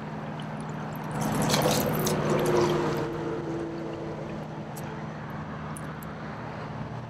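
Water splashing for about two seconds, starting about a second in: a hooked smallmouth bass thrashing at the surface. A steady low hum runs underneath.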